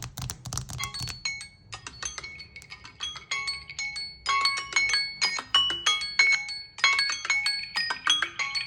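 Samsung Galaxy phones ringing: a quick melody of short ringing notes that starts about a second in, after a few clicks, and grows louder and busier toward the end.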